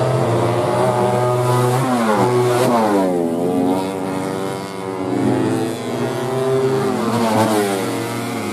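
Several 150cc four-stroke underbone racing motorcycles at high revs, their engine notes overlapping, the pitch dropping and climbing again as they ride through a corner.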